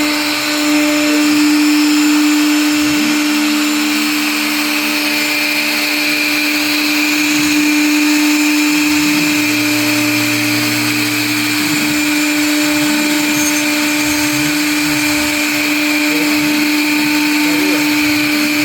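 CNC router spindle running with a steady high whine while it routes folding grooves in a composite panel. Lower motor tones shift and change in pitch as the machine moves, one held for a couple of seconds near the middle.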